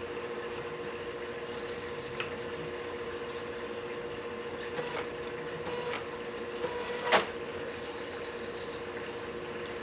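Servo and repurposed inkjet-printer mechanism of a homemade alkalinity tester moving as it tips its vial to dump rinse water, heard as a few light clicks and one sharp click about seven seconds in, over a steady hum.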